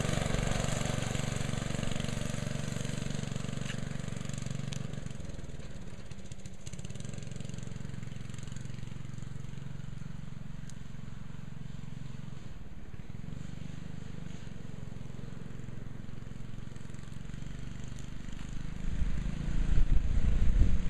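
Murray go-kart's small engine running steadily, fading as the kart pulls away across the field. A louder low rumble comes in near the end.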